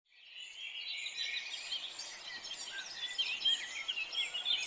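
Many small birds chirping together in a dense chorus of short, high chirps, fading in over the first half second.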